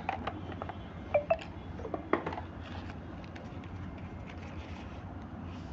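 Small clicks and taps from a smartphone and its packaging being handled as it is unpacked, over a low steady hum.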